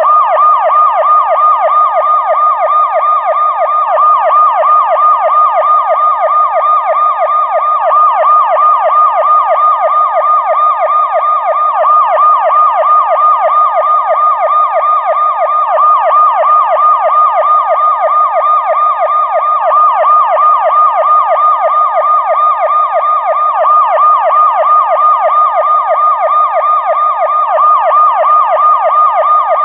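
Police siren on a fast yelp: a loud, rapid up-and-down wail repeating several times a second without a break.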